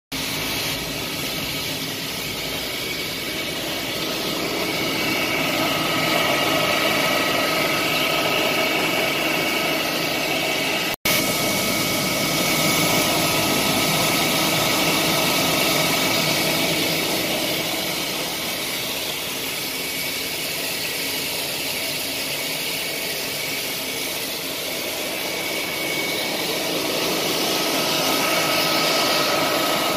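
Homemade grain loader running steadily: a machine drone with a few faint steady whining tones over the rushing hiss of grain moving through it. The sound breaks off for an instant about eleven seconds in.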